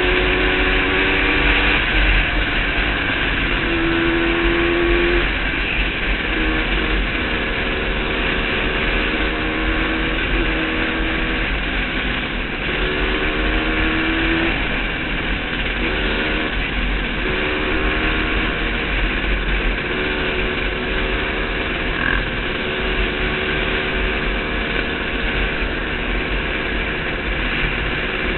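Yamaha YZ125 single-cylinder two-stroke dirt bike engine being ridden hard. Its pitch climbs and drops back again and again as it revs and shifts up through the gears. Wind rushes and buffets over the helmet camera's microphone throughout.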